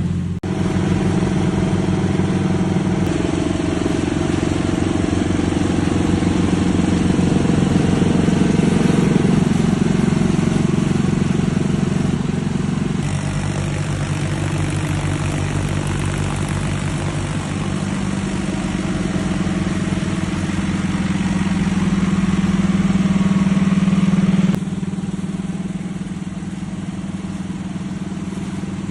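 Engine of a heavy-duty air compressor running steadily, with its pitch and loudness changing abruptly about 13 and 25 seconds in.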